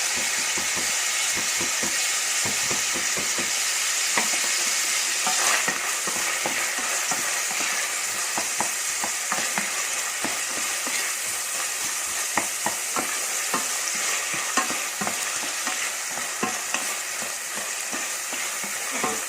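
Chopped onion frying and sizzling in a hot pan as it is stirred, with a steady hiss and frequent light clicks and scrapes of the utensil against the pan.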